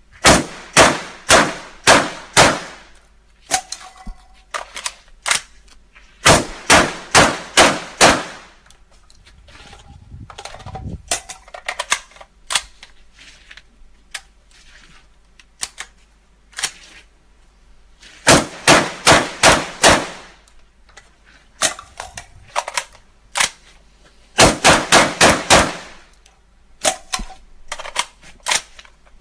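UTAS XTR-12 gas-operated semi-automatic 12-gauge shotgun fired rapidly, in four strings of about five or six shots each. Softer clanks and clicks come between the strings as magazines are changed.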